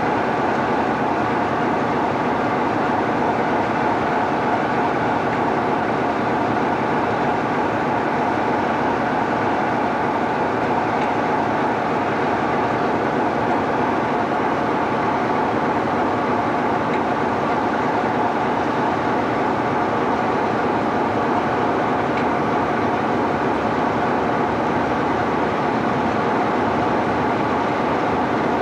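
British Rail Class 47 diesel locomotive's Sulzer twin-bank 12-cylinder engine running steadily at low power, an even engine note with no rise or fall.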